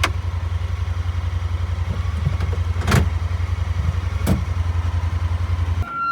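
A vehicle engine running with a steady low drone, with a few sharp knocks about three and four seconds in; it cuts off abruptly shortly before the end.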